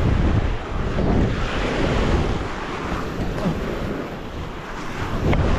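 Sea waves washing onto the beach, with wind buffeting the microphone.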